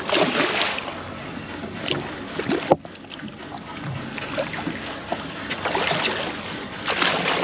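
A hooked fish thrashing and splashing at the surface beside a boat, in irregular bursts. There is a sharp click about three seconds in.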